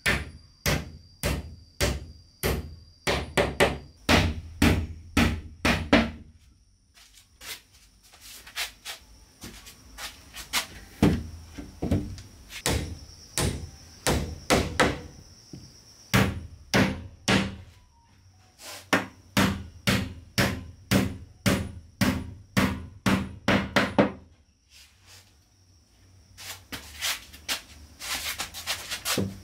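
Hammer nailing wooden wall planks: runs of sharp strikes, about two to three a second, broken by short pauses.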